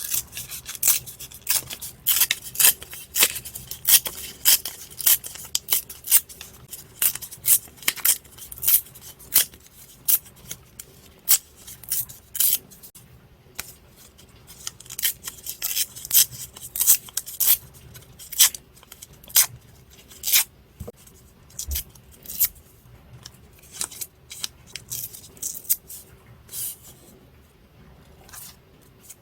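Scissors snipping through paper in a run of short, sharp cuts, with brief pauses between runs.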